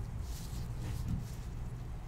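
Low steady hum with faint rustling and a soft thump about a second in.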